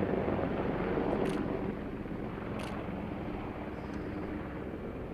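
AH-64 Apache attack helicopter flying, its rotor and engines making a steady, even sound that slowly fades.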